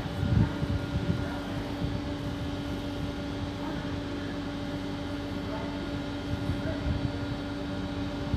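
Steady electric hum from a standing Regio 2N double-deck electric train, its auxiliaries running at the platform. Wind gusts rumble on the microphone, strongest about half a second in.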